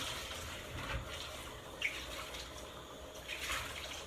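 Water running and splashing in a kitchen sink as quinoa is rinsed in a strainer, uneven in strength, with a short click just before the two-second mark.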